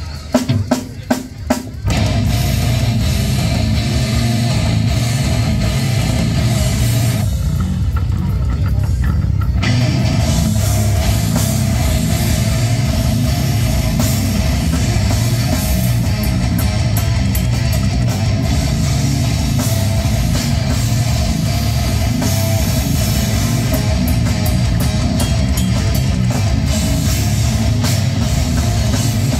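Live heavy metal band playing: drum kit, distorted electric guitars and bass. It opens with a few sharp, separate hits before the full band comes in about two seconds in, and the cymbals drop out for a couple of seconds about a third of the way through.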